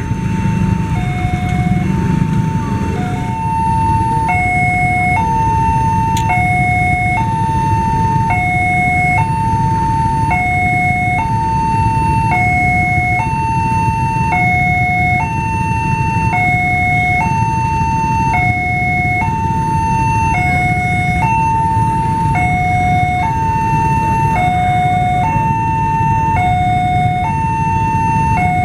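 Indonesian level-crossing warning alarm sounding its electronic two-tone signal: a higher note held about a second, then a shorter lower note, repeating steadily about every two seconds. It warns that a train is approaching. Beneath it runs a steady low rumble from motorbikes idling at the closed crossing.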